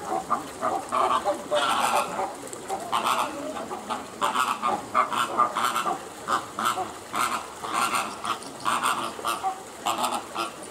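Flamingos honking: many short nasal calls, several a second, overlapping with no pause.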